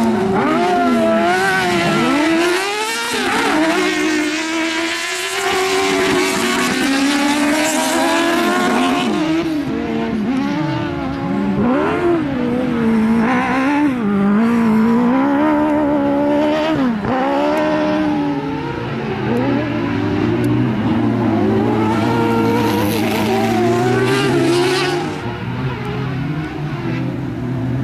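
Twin-engine Suzuki-powered autocross buggy racing on a dirt track, its engines revving hard, the pitch repeatedly climbing and dropping as it accelerates and lifts through the corners. In the last several seconds a steadier, lower engine note runs beneath it.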